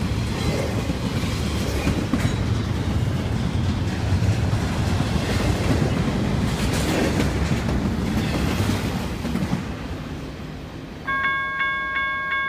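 Intermodal freight cars rumbling and clattering over the rails as they pass close by, the noise fading as the end of the train moves away. Near the end a loud bell-like ringing starts suddenly, pulsing about four times, and cuts off.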